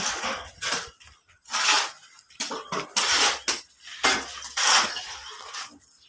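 Broom sweeping dust across a bare concrete floor: a series of scratchy strokes, roughly one every second or so.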